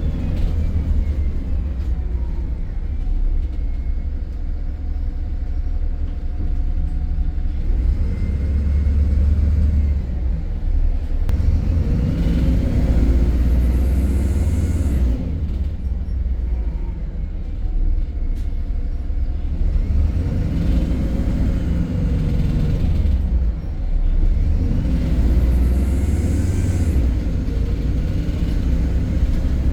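MAN E300 single-deck bus running on the move: a steady heavy rumble, with the drive pitch rising and falling twice as it pulls away and slows. Two short hisses come near the middle and near the end.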